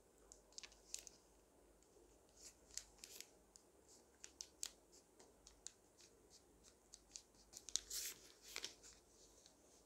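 Origami paper rustling and crinkling faintly as hands fold and crease it: a scatter of small crackles, with a louder flurry about eight seconds in.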